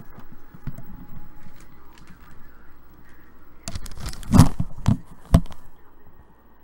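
Handling noise close to the microphone: scattered small clicks and rustles, then a few loud sharp knocks between about four and five and a half seconds in.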